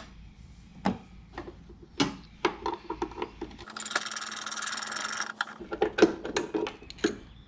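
Tool work on a car's bonnet hinges: scattered metal clicks and knocks, with a fast-rattling mechanical whirr lasting about two seconds in the middle.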